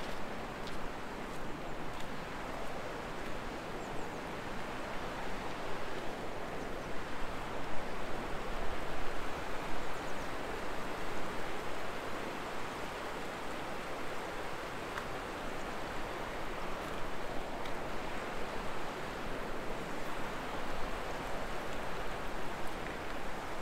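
River rapids rushing over rocks below a footbridge: a steady wash of water noise.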